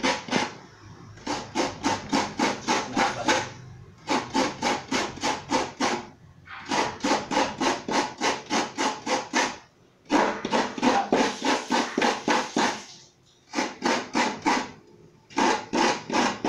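Coconut meat being grated by hand on the serrated metal blade of a coconut grater stool: quick rasping strokes, about five a second, in runs of one to three seconds with short pauses between.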